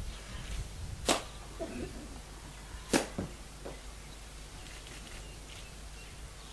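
Two sharp knocks about two seconds apart, the second followed closely by a lighter one, over a faint low hum.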